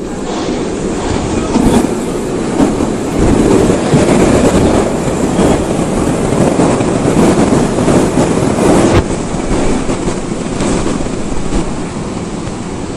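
Berlin U-Bahn train running on the track, a loud rumble of wheels and rails with some clatter. It builds over the first few seconds and drops off suddenly about nine seconds in.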